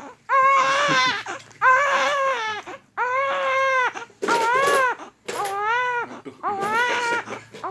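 A baby sick with flu and a cough crying in about six wails, each about a second long, rising and falling in pitch, with short breaths between.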